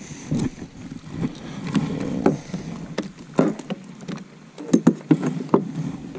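Irregular knocks and clicks from handling aboard a plastic sit-on-top fishing kayak, a dozen or so scattered taps and bumps.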